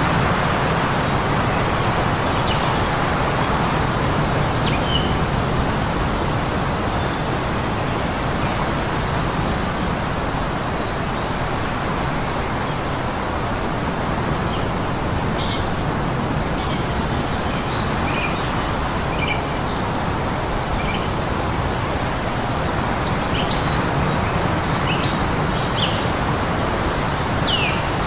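Steady blizzard wind noise with small birds chirping here and there above it. The chirps come more often in the second half and end in a quick run of downward-sweeping calls.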